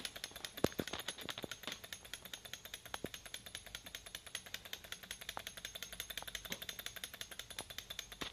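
Small two-cylinder Stirling engine tank model running and creeping along, a fast, even clatter of about a dozen clicks a second from its engine and drive, with a few louder knocks. The drive between the body and the drive wheels is poorly matched, so it barely moves under its own power.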